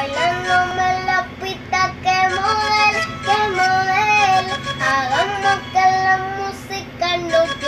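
A boy singing a melodic line over a backing track with a beat, the notes held and sliding from one to the next.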